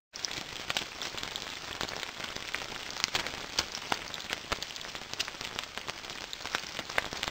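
Bacon sizzling in hot fat: a steady hiss with frequent sharp, irregular crackles and pops.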